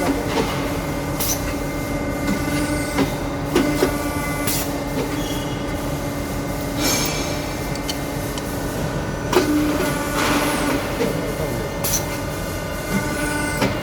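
CNC tube bending and end-forming machine working: a steady mechanical hum with sharp knocks and clicks at uneven intervals as the tooling moves, and short hisses about seven and ten seconds in.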